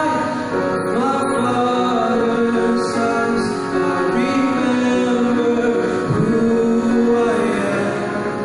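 A man singing long held notes into a microphone, accompanied by a grand piano.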